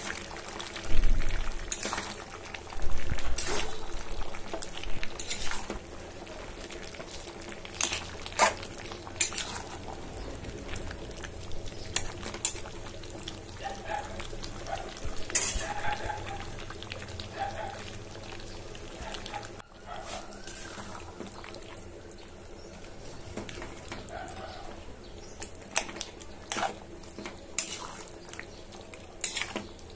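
A metal spatula scrapes and knocks irregularly against a metal kadai as chicken curry with potatoes is stirred, over a steady simmering sizzle from the pan.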